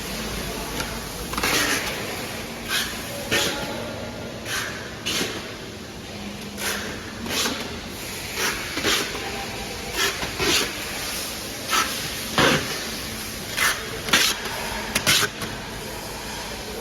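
Irregular short knocks, taps and rustles of items being handled during order packing, over a steady hiss.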